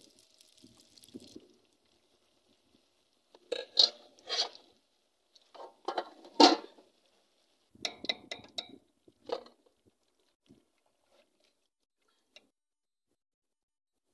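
Hot oil sizzles faintly at first. Then a metal spoon knocks and scrapes against the small metal pot in four short clusters of clinks while it turns doughnuts frying in the oil.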